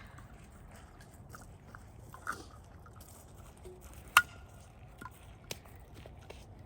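A few sharp, hard clicks over a faint background. The loudest comes about four seconds in and carries a short ringing tone, and a smaller click follows about a second later.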